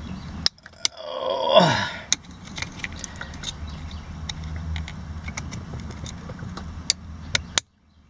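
Small screwdriver tip clicking and scraping against the plastic latch of an airbag wiring connector while it is being pried loose: many scattered sharp clicks over a low rumble. A low, falling grunt of effort comes about a second in, and the sound cuts off suddenly near the end.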